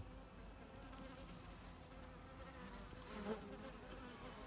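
Honeybees buzzing around an open hive, a faint steady hum, with a brief louder sound about three seconds in.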